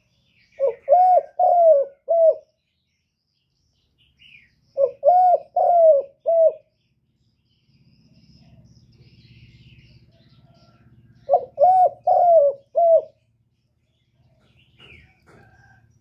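Spotted dove cooing: three phrases of four short notes each, with pauses of a few seconds between them.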